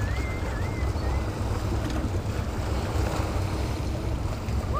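Wind buffeting the microphone in a steady low rumble over small lake waves lapping against a rocky shoreline, with a faint wavering high tone in the first second or so.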